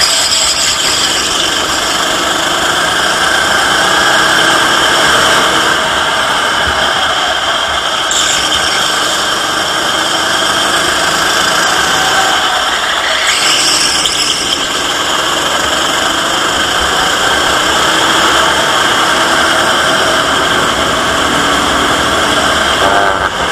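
Racing kart engine at race speed, heard from on board, running hard continuously with its pitch rising and falling through the corners. There is a short high squeal about halfway through.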